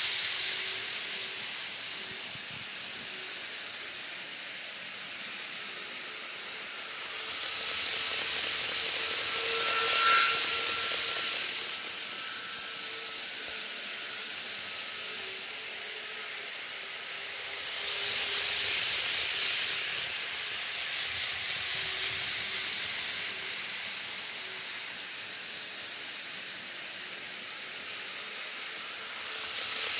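Model shinkansen trains running on the layout's track: a steady hiss of wheels and motors with a faint whine, swelling three times as trains come near and fading as they move away.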